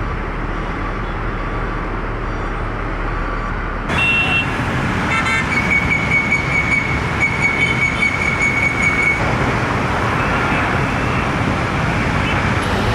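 Steady engine roar that jumps abruptly to a louder take about four seconds in, with a high, steady whine held for a few seconds in the middle.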